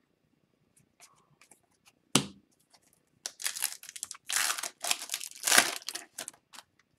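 A single sharp tap about two seconds in. Then a foil-lined hockey card pack wrapper is torn open, crackling and crinkling for about three seconds.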